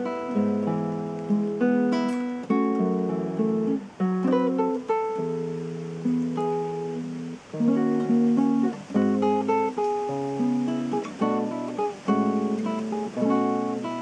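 Solo nylon-string guitar played fingerstyle: a melody picked over bass notes and chords, the notes ringing into one another.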